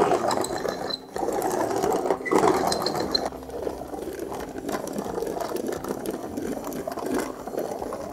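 Hand roller rolling over an adhesive writing-surface skin, pressing it onto the board: a continuous rapid clatter, with a short break about a second in.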